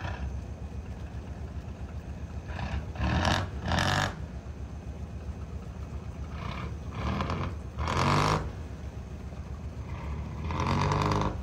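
Fishing boat's Nissan V10 diesel engine idling with a low steady rumble, its throttle blipped into several short revs that come out as louder, rougher bursts from the exhaust stack, which puffs black smoke.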